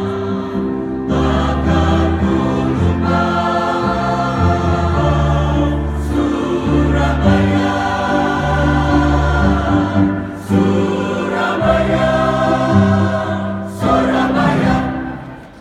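Live band with a group of voices singing together. The song comes to its end: the last sustained chord fades out about fifteen seconds in.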